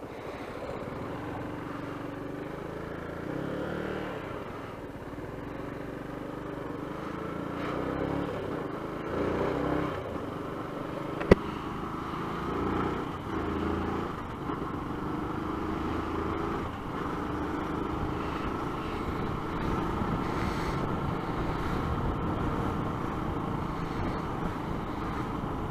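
Motorcycle engine running on the move, its pitch rising and falling several times with throttle and gear changes, over steady road noise. One sharp click sounds about eleven seconds in.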